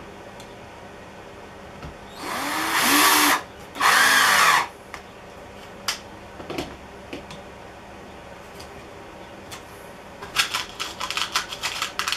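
Cordless drill driving screws into the wooden jig: two short runs of about a second each, the motor speeding up and slowing down with the trigger. Then a few knocks and, near the end, a quick run of clicks and rattles.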